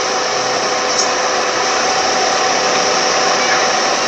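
Car air-conditioning blower fan running steadily: an even rushing of air with a faint steady hum under it.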